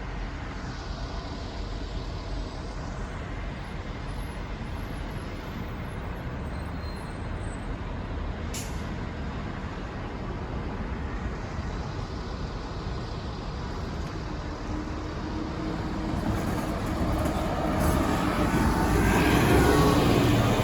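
City buses running at a bus bay, with steady engine and traffic noise. A short sharp hiss, like an air brake, comes about eight and a half seconds in, and near the end a bus's engine hum grows louder as it comes close.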